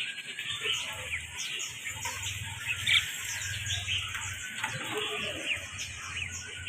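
Many parrots chirping at once, with short high chirps overlapping continuously and one louder call about three seconds in, over a low steady hum.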